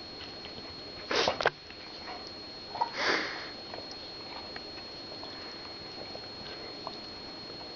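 A dog sneezing: a sharp double sneeze about a second in, then a breathier snort-like sneeze about three seconds in, followed by small sniffs.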